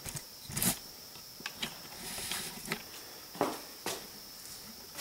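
Scattered small clicks, knocks and rustling as a person moves about and handles things, with no engine running yet.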